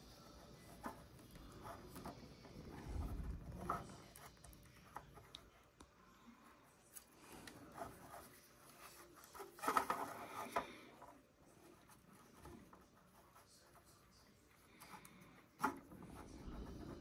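Faint hand-handling of an anime figure and its bow: small taps, clicks and rubbing as the bow is worked into the figure's hand, with a louder clatter of knocks about ten seconds in and a single sharp click near the end.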